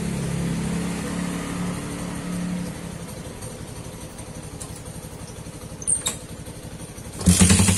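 Yamaha Byson 150cc single-cylinder engine idling through an aftermarket SC Project exhaust, a steady, fast, even pulsing. About seven seconds in it turns suddenly much louder, with a hard, rapid beat like a jackhammer.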